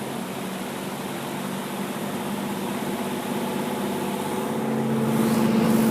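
GE F15W12 box fan motor and blades speeding up on high, a steady hum that grows louder over several seconds. On high it makes a weird noise, which the owner thinks might be end play in the motor shaft.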